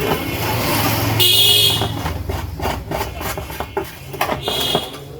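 Street traffic with vehicle horns honking: a honk about a second in, the loudest sound, and a shorter one near the end, over a low engine rumble and scattered light clicks.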